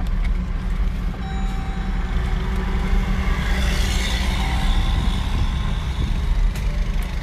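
Inside a car's cabin, a steady low rumble of the engine and tyres as the SUV drives slowly over a rough, potholed dirt lot. A hissing rush swells about halfway through and fades again.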